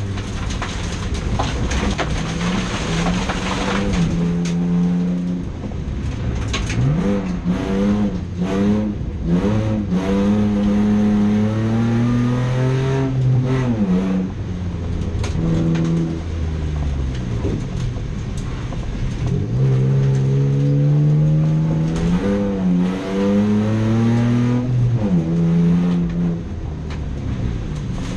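Racing car engine revving hard, its pitch climbing and dropping again and again as it accelerates and lifts off.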